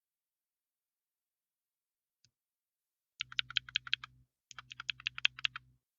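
Computer keyboard being typed on: after a single faint click, two quick runs of sharp key clicks, about ten keystrokes each, starting about halfway in.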